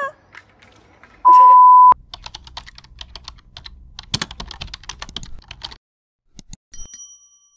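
A short, loud, steady beep about a second in, then a rapid run of keyboard-typing clicks for about four seconds, a typing sound effect as a name is typed out on screen. Near the end come a couple of mouse clicks and a brief high chime as a subscribe button is clicked.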